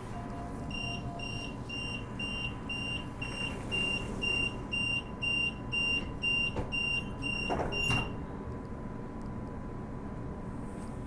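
Door-closing warning beeps on a Bombardier B-series electric train: a high beep repeating about three times a second for some seven seconds as the doors shut. It ends with a thump.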